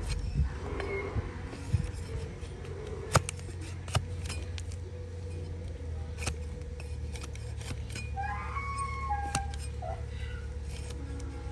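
Scattered sharp clicks and snaps of hoof-trimming tools cutting a donkey's hoof, with the two loudest about three and four seconds in. A chicken calls briefly in the background about eight seconds in.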